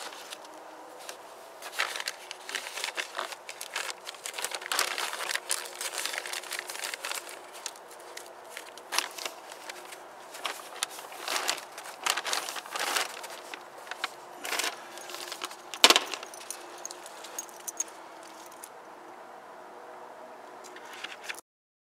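Metal tie wire clinking and scraping as it is twisted by hand around a cord and stake, with plastic sheeting crinkling against the hands. The irregular clicks and rustles are dense, with one sharp loud click about three-quarters of the way through, then grow sparser and quieter near the end.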